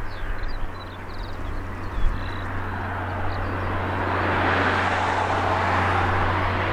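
Cessna 172S Skyhawk SP's four-cylinder piston engine and propeller droning steadily as the plane climbs out after take-off, growing louder from about three seconds in as it comes nearer. A few bird chirps sound in the first two seconds, and there is a brief thump about two seconds in.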